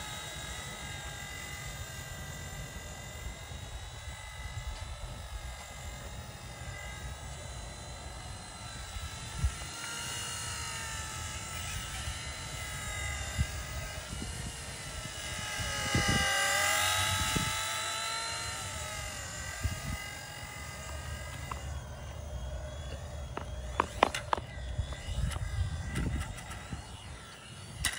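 Small E129 radio-controlled helicopter's electric motor and rotor whining, the pitch wandering up and down as the throttle changes and rising, louder, for a couple of seconds around the middle. A few sharp clicks, the loudest near the end.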